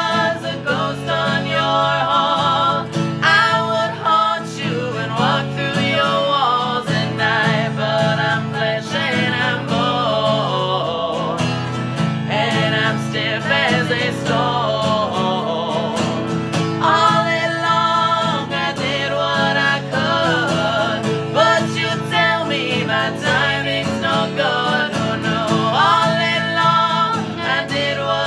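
Steel-string acoustic guitar strummed in a steady rhythm, with a man and a woman singing together in a duet, in a country/folk style.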